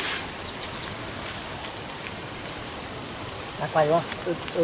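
Steady high-pitched chorus of insects.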